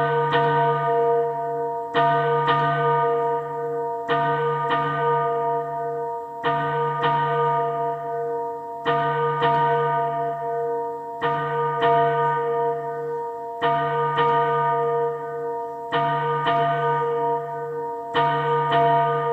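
Church bells ringing, struck in pairs about every two seconds, each stroke ringing on long enough to overlap the next.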